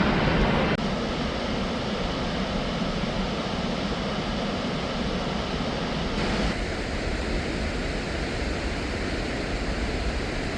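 Waterfall: a steady, loud rush of falling water with no clear tones. Its character changes abruptly about a second in and again about six seconds in.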